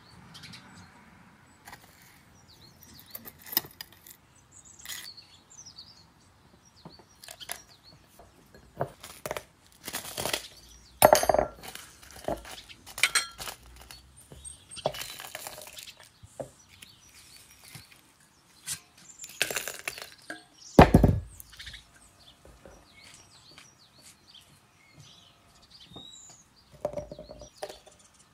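Irregular clinks and knocks of kitchenware: metal and glass bowls and a spoon, and items set down on a wooden chopping board, with the loudest knocks about eleven and twenty-one seconds in. Birds chirp faintly in the background.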